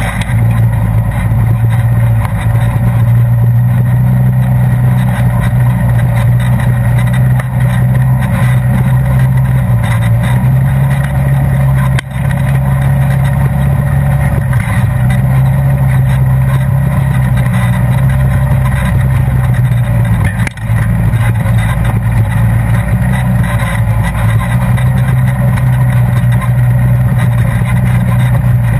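Polaris RZR side-by-side's engine running steadily as it drives along a dirt trail, heard loud from inside the open cab. The engine note briefly drops twice, about twelve and twenty seconds in.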